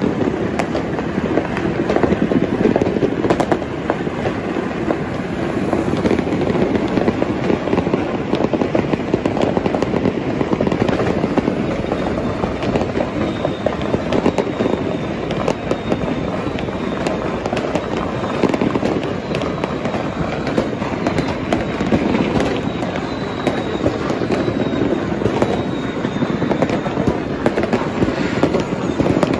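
Dense, continuous crackling and popping of many fireworks and firecrackers going off together, with a few louder bangs standing out now and then.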